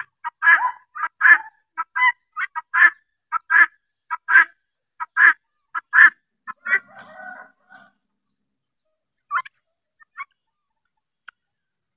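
Flock of helmeted guineafowl calling: short, harsh calls repeated about twice a second for the first six seconds, then a brief softer chatter, then only a few scattered calls.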